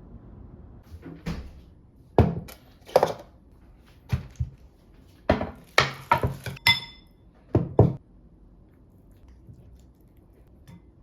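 A run of knocks and thuds, about a dozen over six seconds, like things being handled and set down in a small room. One of them, about two-thirds of the way in, is a short ringing clink.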